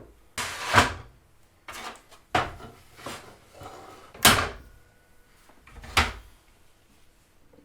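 Pine trim boards being handled and laid down on a work surface: four or five separate wooden knocks and clatters, a second or two apart, with quieter scraping between.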